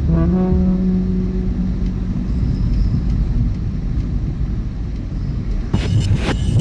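Car driving along a road, with steady engine and road rumble. A few sustained tones sound early on, and a cluster of sharp knocks comes near the end.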